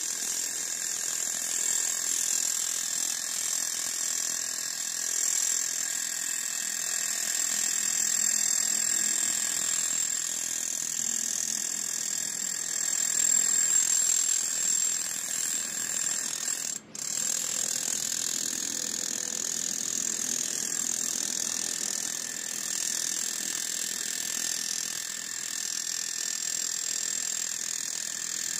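Milwaukee SDS Max cordless rotary hammer hammering steadily, driving a 5/8-inch ground rod into the ground through a ground rod driver adapter. The sound breaks off for a split second a little past halfway, then carries on.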